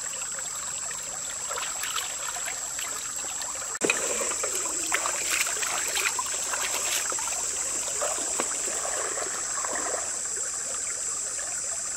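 Shallow stream flowing and trickling, with water sloshing and splashing as hands wash gutted frecklefin eels in a metal basin. A steady high-pitched buzz sits over the water sound, and everything gets a little louder suddenly about four seconds in.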